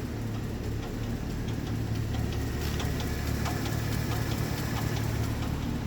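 Pontiac G8 V8 running with a sharp, rapid lifter tick over the engine's steady hum, several ticks a second. It is the sign of a failed Displacement on Demand (cylinder deactivation) lifter.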